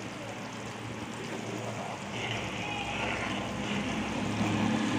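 Butter simmering down into ghee in a kadai: a steady bubbling sizzle as the froth cooks, stirred with a steel ladle, at the stage when the ghee is nearly ready. Under it runs a low steady hum that grows louder near the end.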